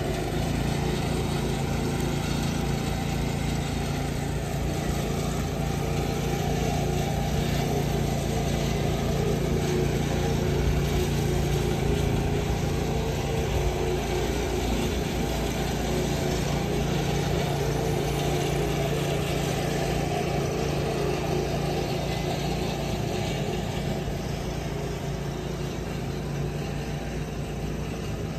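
A small engine running steadily at a constant speed, its pitch unchanging throughout.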